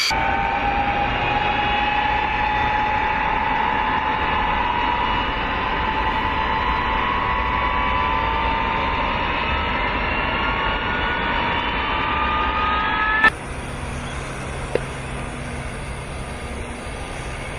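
B-52 bomber's jet engines starting up amid cartridge-start smoke: a loud rush with several whines rising slowly in pitch as the engines spool up. About thirteen seconds in it cuts abruptly to a quieter, steady low hum with a single faint click.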